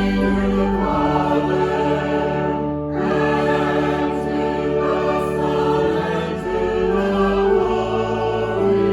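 Choir singing a slow sacred piece in long held notes, with a short breath between phrases about three seconds in.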